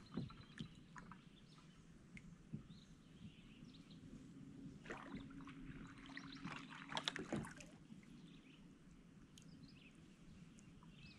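Double-bladed kayak paddle strokes in calm water: the blade dipping and pulling, with splashes and drips. There are a few sharper splashes or knocks, the loudest about five and seven seconds in.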